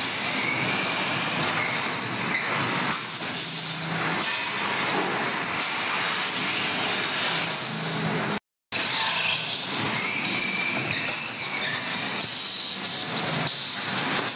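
Factory machine noise from vertical drilling machines working small brass pipe fittings: a steady mechanical din with a low motor hum that comes and goes. It drops out briefly about eight seconds in, then carries on the same.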